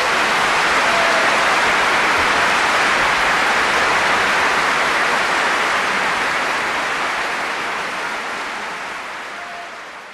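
Audience applauding at the end of a live orchestral concert, a steady clapping that slowly fades out over the last few seconds.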